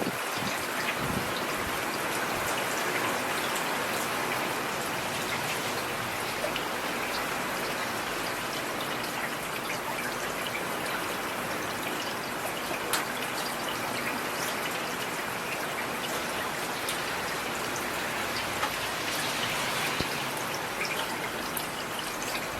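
Steady rain falling, with scattered individual drops ticking through the even hiss.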